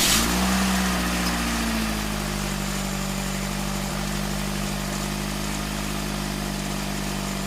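Car starter motor spinning freely on a bench, powered straight from a battery. It starts suddenly and runs with a steady electric hum, settling to an even speed after about two seconds.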